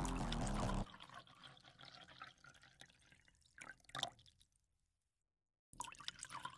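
Background music cuts off about a second in. After that, faint dribbling and dripping of epoxy resin pouring in a thin stream into a mold, with a couple of louder drips near the middle.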